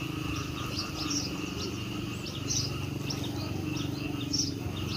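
Small birds chirping, short high notes repeating about once a second, over a steady low background hum.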